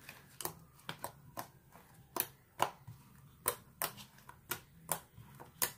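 Clear-glue slime being kneaded and squeezed by hand in a plastic bowl: a string of small wet clicks and pops, about one or two a second, at irregular intervals.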